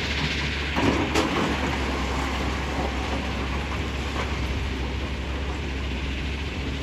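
Tata Hitachi hydraulic excavator running steadily, its diesel engine droning under a constant haze of noise, with a short knock and clatter of stone about a second in.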